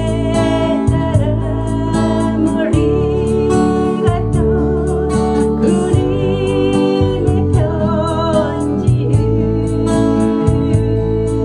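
A woman singing a slow Korean ballad, accompanying herself on a strummed acoustic guitar, over held low bass notes that change every second or two.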